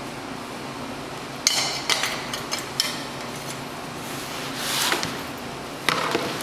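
Sharp metallic clanks and knocks from a clamped square steel-tube frame being handled, in two clusters, with a brief swelling hiss between them.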